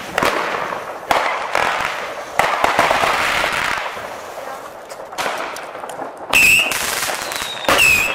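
New Year's fireworks set off at ground level: a string of sharp bangs, about four in the first five seconds, with a crackling hiss of spraying sparks between them. Near the end come two loud whistling fireworks, each a short high whistle, about a second and a half apart.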